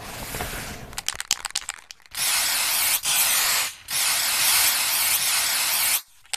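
Aerosol spray-paint can: a quick run of rattling clicks, then the spray hissing in three long blasts with short breaks between them, cutting off suddenly near the end.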